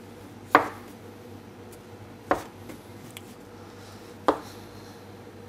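Metal dough scraper chopping down through stiff, chilled brioche dough onto a wooden worktop: three sharp knocks about two seconds apart.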